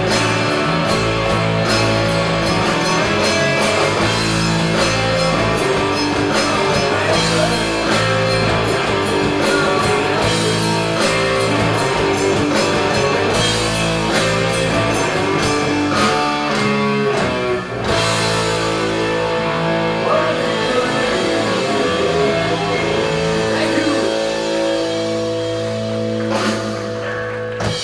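Rock band playing live: electric guitars, bass and drum kit, with frequent drum hits for the first two-thirds, then held, ringing chords with fewer drum hits toward the end.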